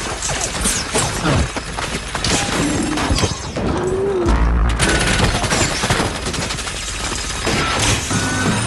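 Action film soundtrack: rapid gunfire from automatic weapons among dense crashes and impacts, with sudden cuts between shots.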